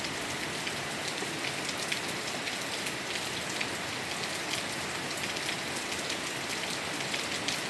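Steady, heavy rainfall: an even hiss with a dense patter of separate drops striking.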